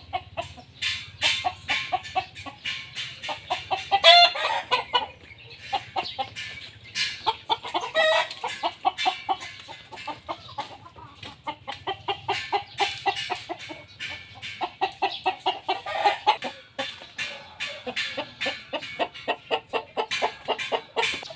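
Chickens clucking in a dense run of short, rapid calls, with a louder drawn-out call about four seconds in and another about eight seconds in.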